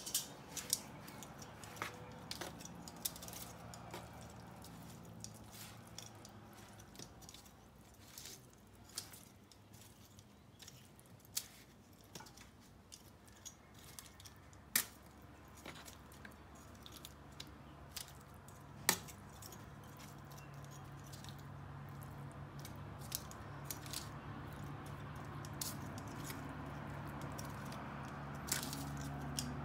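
Metal kitchen tongs clicking, clinking and scraping as they toss sauced cauliflower florets on a foil-lined pan, in irregular sharp clicks. A low steady hum comes in about halfway through and grows louder.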